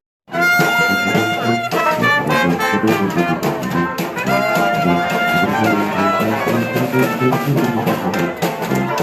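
Music with brass instruments playing held notes over a steady beat, jazz-like; it comes in after a brief moment of silence at the start.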